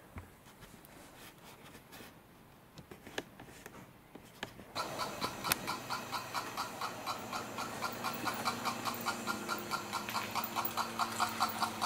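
A model locomotive's small electric motor starts about five seconds in after a few light handling clicks, running with a steady hum that rises slightly in pitch and a regular pulsing beat about three times a second.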